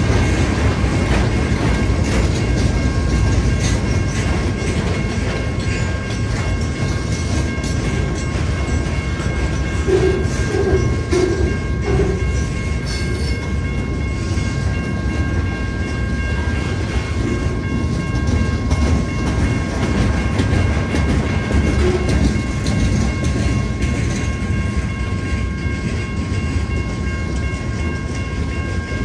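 Freight train of lumber cars rolling past with a steady low rumble of steel wheels on rail.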